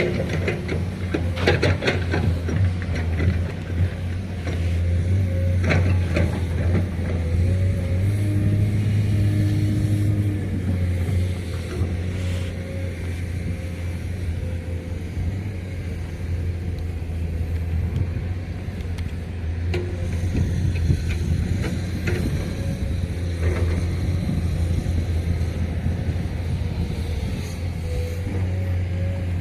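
Heavy diesel engine running steadily with a low drone, with a few sharp knocks in the first couple of seconds.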